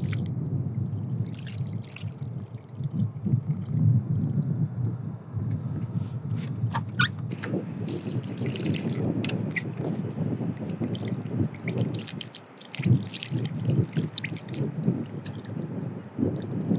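Water sloshing and splashing in a stainless steel bowl as cleaned razor clam meat is rinsed and swished by hand, with rinse water tipped out onto the sand. About eight seconds in, fresh water pours into the bowl from a plastic jug for a second or two, then the hand swishing resumes.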